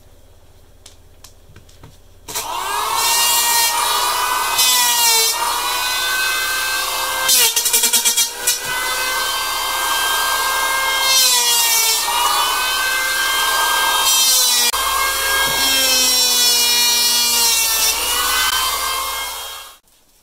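Electric hand planer set to its full 2 mm depth of cut, shaving a scarf bevel into plywood sheets. The motor starts with a whine about two seconds in, its pitch sags each time the blades bite into the wood, it stutters briefly near the middle, and it cuts off suddenly just before the end.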